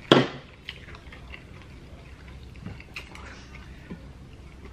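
Close-miked eating sounds: one loud mouth smack just after the start, then faint mouth clicks and small chewing noises.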